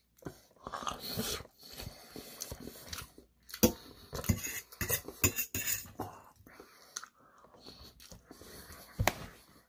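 Close-up eating sounds: chewing with a metal fork clicking and scraping on a stainless steel plate, in irregular short clicks with a sharper click near the end.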